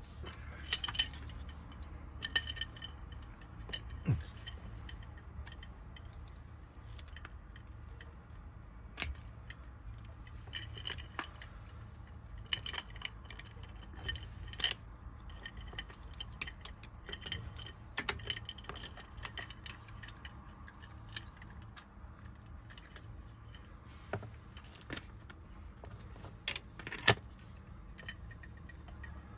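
Small metal clicks and clinks of a Honda door lock cylinder, its wafers and keys being handled and taken apart during rekeying, scattered irregularly, with a few sharper clicks, over a steady low hum.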